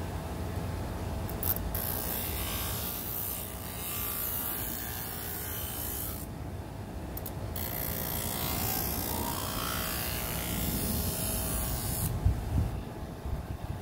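Motor-driven sharpening wheel charged with wax, spinning steadily, with a hissing rasp while a thin steel knife blade is held against it to sharpen the edge. The contact breaks off for about a second in the middle and stops shortly before a few knocks near the end.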